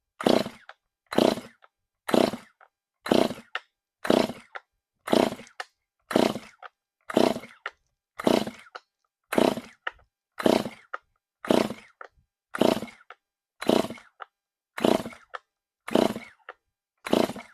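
Freshly rebuilt Stihl MS 291 two-stroke chainsaw being pull-started over and over, about one pull a second, each a short rasp of the recoil starter and the engine cranking, without the engine catching. The owner suspects it is flooded.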